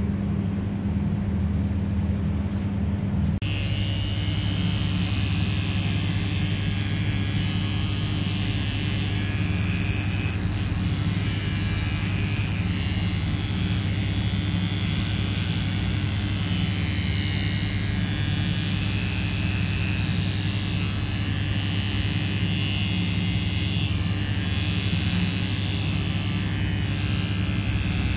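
Small cordless pet paw trimmer buzzing steadily as it clips the fur between a dog's paw pads.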